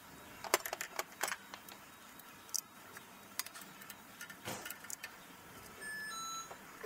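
Metal hand tools clinking and tapping against engine parts in a string of sharp, irregular clicks, with a brief two-pitched tone near the end.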